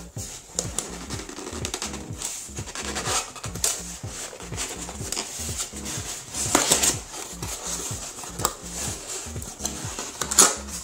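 A cardboard box being opened by hand: flaps scraping, folding and rustling, with sharper crackles about six and a half seconds in and near the end, over background music.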